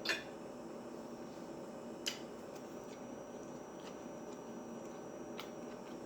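Quiet eating sounds close to the microphone: soft chewing with a few sharp clicks, one at the start and a sharper one about two seconds in, then fainter ticks.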